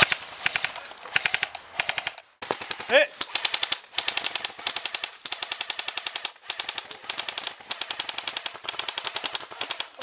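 Airsoft electric guns firing in rapid full-auto bursts, strings of sharp clicks with short gaps between them. The AGM MP40 fires first; after a brief break about two seconds in, the bursts come from rifles.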